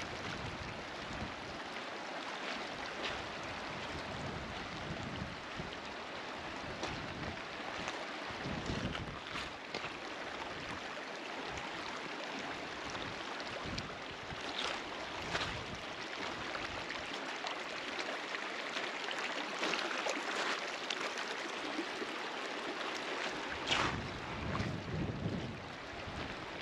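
Shallow, muddy floodwater running fast over a gravel riverbed, swollen by a flash flood: a steady rushing hiss. Gusts of wind buffet the microphone now and then.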